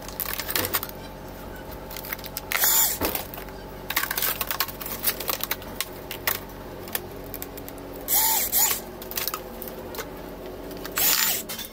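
Laptop parts clicking and clattering as they are handled and taken apart, with three short whirs of a small power tool about two and a half, eight and eleven seconds in.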